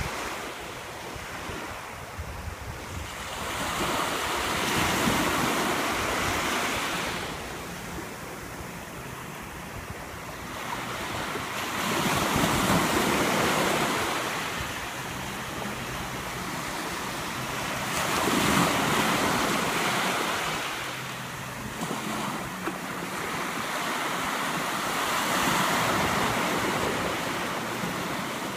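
Small waves, six to eight inches high, breaking and washing up a sandy beach. The rush of surf swells and ebbs about every six or seven seconds, four times.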